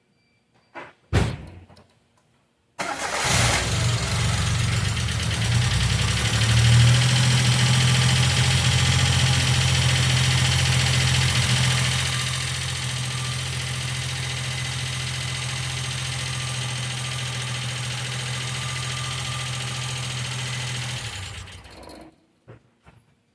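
1995 Geo Metro engine started after a brief sound about a second in, running at a raised idle before settling to a lower, steady idle around halfway, then switched off near the end. The valve lifters are ticking.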